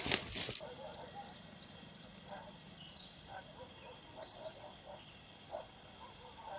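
A brief rustling and handling noise at the very start. This gives way to a faint, quiet outdoor background with scattered short calls from distant animals, a few a second at most.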